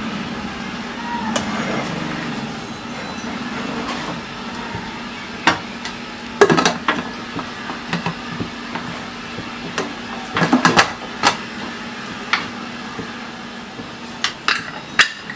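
Aluminium pressure cooker lid being fitted and pressed shut on the cooker: a run of irregular metal clanks and knocks, the loudest about six and a half and ten and a half seconds in. A steady low hum runs underneath.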